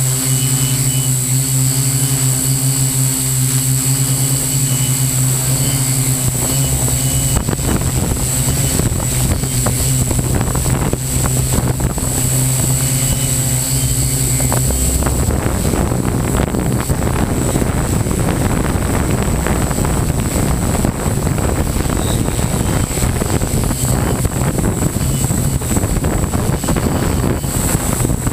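Model hexacopter's six electric motors and propellers whirring, heard close up from the camera on the aircraft. For the first half it is a steady hum; about halfway through it turns into a rougher rushing sound.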